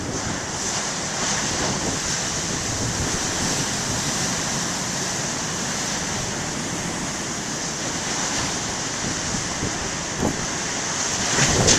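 Large ocean waves breaking in a steady rush of surf, with wind buffeting the microphone. The sound swells louder near the end.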